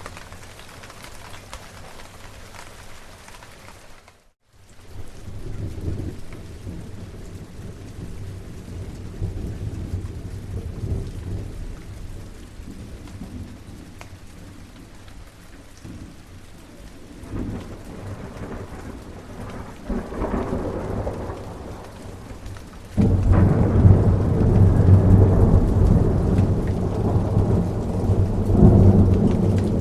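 Steady rain with rolling thunder. The sound cuts out completely for a moment about four seconds in. Low thunder rumbles then swell and fade, and a loud thunderclap breaks in about three quarters of the way through and rumbles on to the end.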